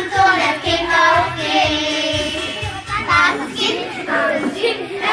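A group of children singing an action song together.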